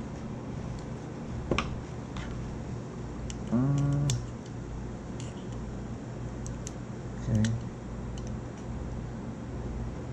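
Scattered light clicks and taps of a small circuit board and pliers being handled on a workbench, over a steady low hum. A short voiced hum from the worker about three and a half seconds in, and a shorter one near seven and a half seconds.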